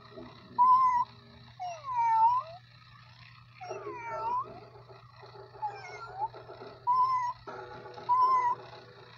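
Electronic walking toy cat playing recorded meows, one after another: short, even calls near the start and end and longer, drawn-out meows in the middle, over a steady low hum.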